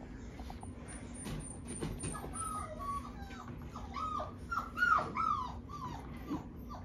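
Four-week-old puppies whimpering: a run of short, high whines that fall in pitch, about two or three a second, starting about two seconds in.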